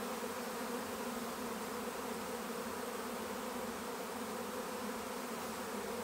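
A swarm of honey bees buzzing around a hive box as a steady, even hum.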